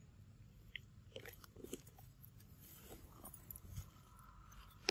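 Macaque chewing shelled peanuts: a few faint, scattered crunches, with one sharp click near the end.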